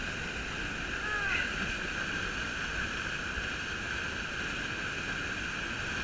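Steady rushing of a waterfall pouring into a rock pool, with white water churning close by.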